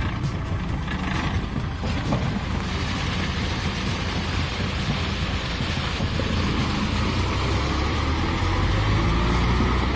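Kubota M6040SU tractor's diesel engine running steadily under load while its rear rotary tiller churns wet paddy mud and water, a continuous splashing hiss over the engine. The engine grows a little louder near the end.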